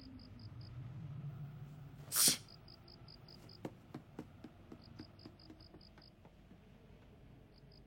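Crickets chirping in short, evenly pulsed trills, with one sharp hissing burst about two seconds in and a few faint clicks after it.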